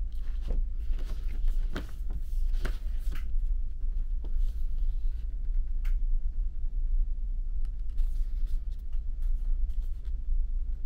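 Steady low drone of the ferry's engines and hull, with scattered light clicks and knocks, most of them in the first few seconds.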